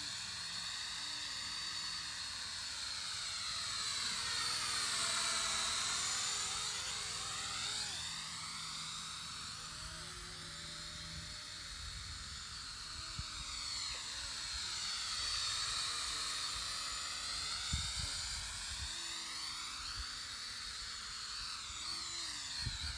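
Small quadcopter drone's propellers whining, the pitch swooping down and back up several times as it changes speed in flight. A few low thumps near the end.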